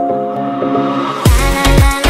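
Background music: keyboard chords, then about a second in a dance beat drops in with deep, downward-sliding bass kicks and drum hits.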